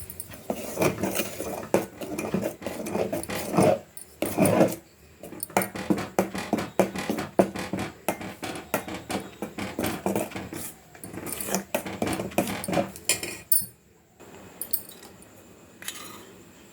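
A utensil knocking and scraping against a cooking pot in quick, irregular strokes, as when a thick dough is stirred and mashed. The strokes stop about thirteen and a half seconds in.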